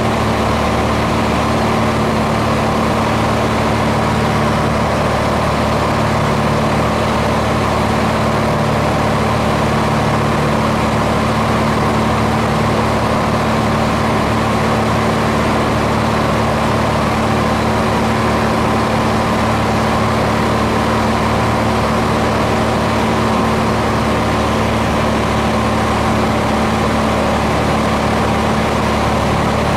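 Aircraft engine running with a steady, unchanging drone.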